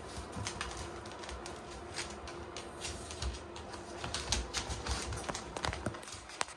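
Shiba Inu puppies' claws clicking and scrabbling irregularly on a hard floor as they tussle over a large plush toy, with soft thumps; the clicks get busier and louder in the second half.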